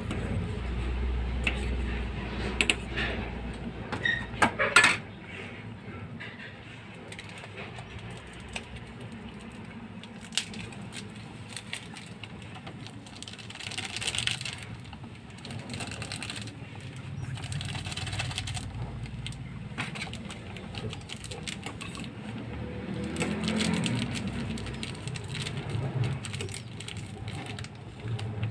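Cooking sounds: scattered metallic clinks and knocks, as of a utensil or lid against a cooking pot, with a few short stretches of hiss.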